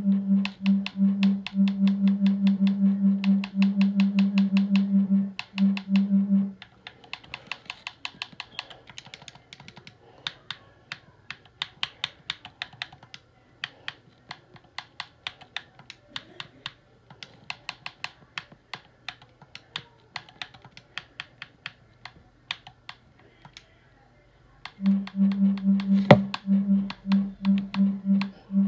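A loud low buzz pulsing about three times a second for the first six seconds and again near the end. In between comes a long run of quieter, rapid, irregular clicks like typing, with one sharp click near the end.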